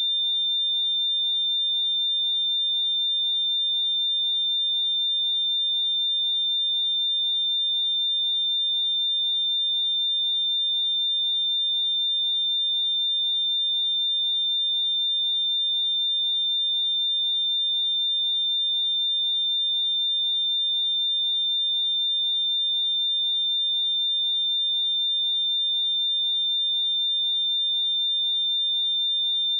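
A pure 3598 Hz sine-wave test tone, a single steady high-pitched whistle held at constant pitch and level.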